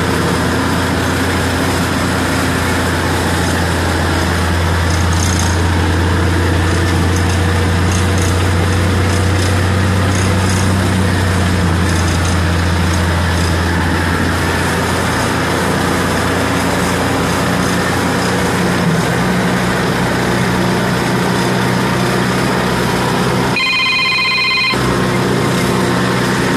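Tractor running steadily under load, driving a four-row cotton stalk shredder, heard from inside the cab. Near the end the machine noise briefly gives way to an electronic ringing tone lasting about a second.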